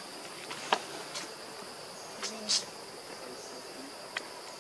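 Steady high-pitched drone of insects, cricket- or cicada-like, with a few short clicks and rustles, the sharpest about a second in and just past halfway.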